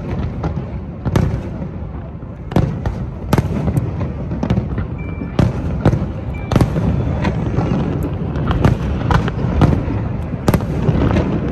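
Aerial firework shells bursting in a rapid display: a continuous run of sharp bangs, often less than a second apart, over an unbroken low rumble of further explosions.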